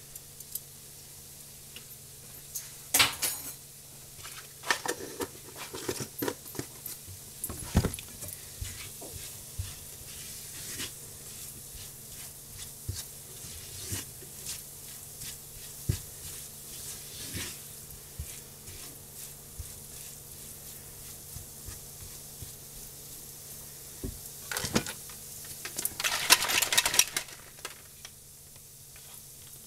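Metal spoon and silicone spatula stirring flour into sausage crumbles in a hot frying pan: scattered scrapes and taps against the pan over a low sizzle. A denser, louder rattling burst comes near the end.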